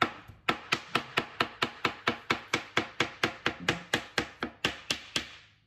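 Kitchen knife chopping peeled aloe vera gel on a plastic cutting board: a fast, even run of blade strikes, about four to five a second, that stops shortly before the end.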